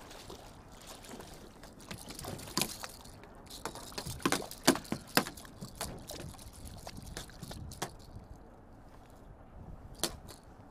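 A hooked bass thrashing at the water's surface beside a kayak, a run of sharp splashes that is loudest about four to five seconds in, with one more splash near the end.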